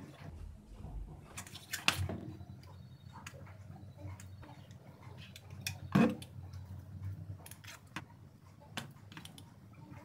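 Handling noises of a hot glue gun and a corrugated cardboard box on a wooden table: scattered light clicks and taps, with two louder knocks about two and six seconds in, over a low steady hum.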